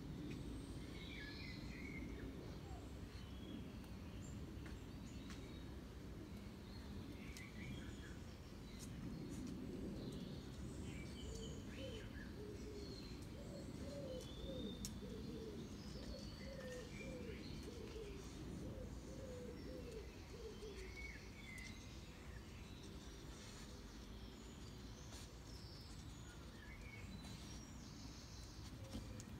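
Small birds chirping now and then over a steady low background rumble, with a run of short, low, repeated calls through the middle.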